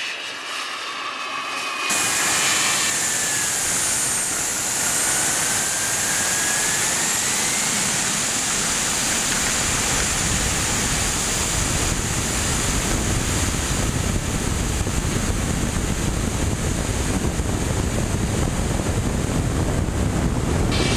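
Radio-controlled model jet heard from its own onboard camera: loud rushing noise with a high engine whine that wanders up and down in pitch, and the low rumble grows stronger from about nine seconds in as the model goes from its takeoff roll into flight. For the first two seconds the model's whine is heard from the ground before the sound changes abruptly.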